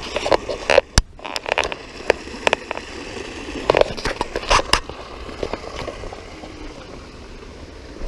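Handling noise on a swinging camera: irregular knocks, bumps and scrapes as it jostles against a hand and a slung DSLR, thickest in the first half. Underneath, a steady rush of flowing creek water.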